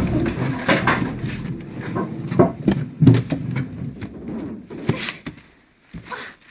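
Debris knocking and clattering after a car crash: scattered irregular knocks and thuds, with a low rumble dying away in the first second.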